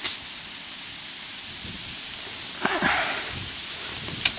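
Steady hiss of cold wind blowing over the microphone and through the reeds beside the water. A short rustle comes about two-thirds of the way through, with a light click near the end.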